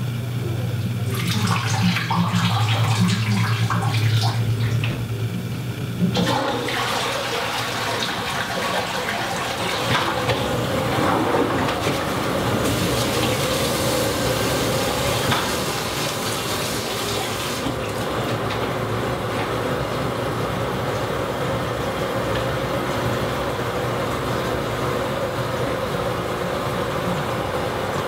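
A low hum for the first few seconds, then a toilet flushes suddenly about six seconds in, followed by the long steady rush of water as the cistern refills.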